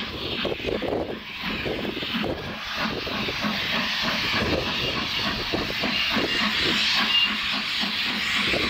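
Two NZGR Ja class 4-8-2 steam locomotives double-heading as they pull away with a train, their exhaust chuffs coming quickly and unevenly, over a steady hiss of steam.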